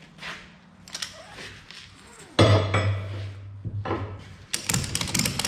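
Metal clicking and clinking from a 2-inch ratchet tie-down strap being worked, with a sudden loud knock about two seconds in followed by a low hum for about a second, and rapid clicking near the end.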